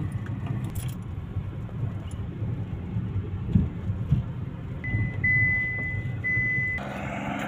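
Road and engine rumble heard inside a moving car's cabin. About five seconds in, a steady high beep sounds for about two seconds, broken twice.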